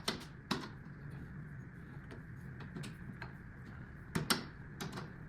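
Tools and door hardware being handled: scattered sharp clicks and light knocks, with two louder knocks close together about four seconds in.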